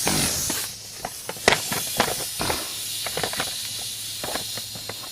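A short hiss of air at the start, then scattered sharp metallic clicks and knocks of tools and parts being handled, the loudest about a second and a half in.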